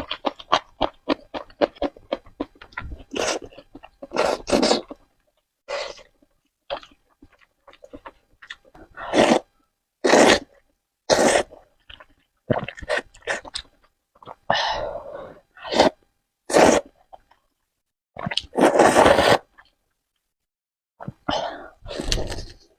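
Close-miked eating sounds: quick wet chewing clicks for about the first three seconds, then a string of short, loud slurps and mouth noises with pauses between them.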